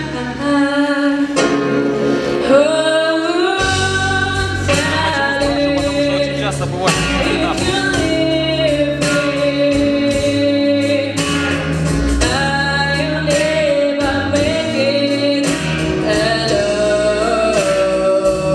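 A singer performing a song over instrumental accompaniment, holding long sustained notes.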